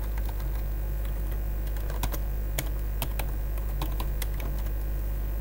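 Computer keyboard typing: irregular, scattered key clicks over a steady low hum.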